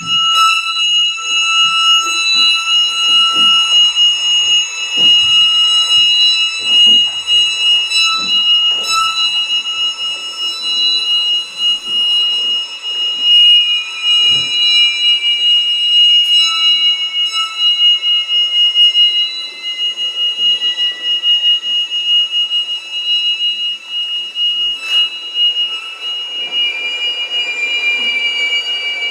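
Solo violin with live electronics: several high tones held together as a steady, piercing drone, with a slow downward slide in pitch in the middle and another near the end, over soft flickering sounds lower down.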